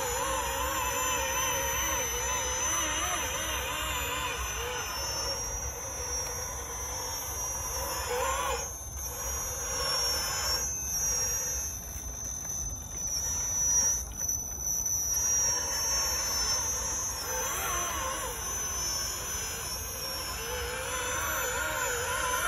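Electric motor and gearbox of a radio-controlled 6x6 Magirus Deutz scale trial truck whining as it crawls, the pitch wavering up and down with the throttle. The whine grows faint in the middle and comes back near the end.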